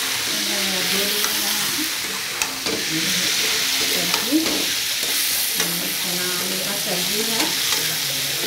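Potato and chickpea curry frying and sizzling in a pan while a metal spatula stirs it, with a few light knocks of the spatula against the pan, as salt and turmeric are mixed in.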